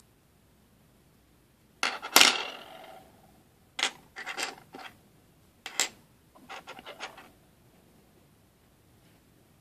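Light clicks and clinks of small metal bezel pendants and a wooden craft stick being handled against the tabletop and a plastic resin cup. The loudest clatter comes about two seconds in, followed by a few scattered lighter taps.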